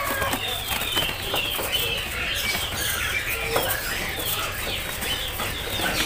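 Many caged songbirds chirping at once, a dense chatter of short, high, overlapping chirps, with some wing flapping.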